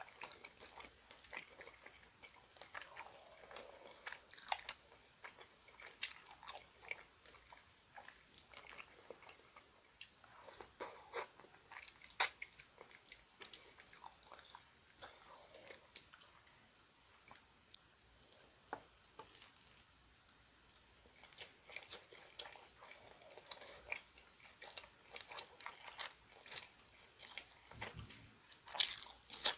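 A person chewing and biting bone-in spicy chicken feet: wet chewing with many small crunches and clicks, and a sharper click near the end.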